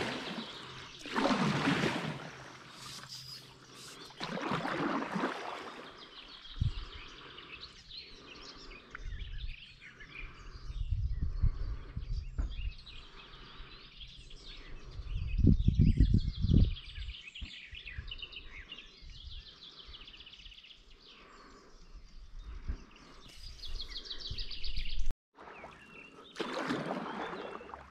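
Paddle strokes of a stand-up paddleboard swishing through river water, a few slow strokes with pauses between, while small birds chirp and tweet. A low rumble comes and goes in the middle.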